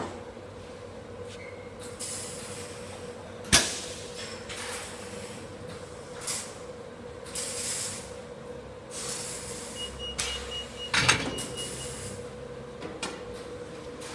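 Industrial door-edge welding machine with a steady hum, several short air-like hisses and metal knocks, the loudest a sharp clank about three and a half seconds in and another around eleven seconds.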